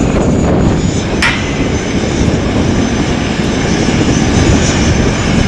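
Airbus A380 jet airliner's four engines rumbling steadily and loudly as the aircraft moves along the ground, with one sharp click about a second in.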